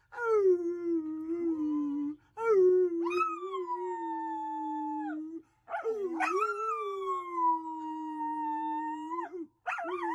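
A man and a dog howling together in long, drawn-out howls: a steady lower voice under the dog's higher howl, which slides down at the end of each one. There are four howls with short breaks between them, and the last starts near the end.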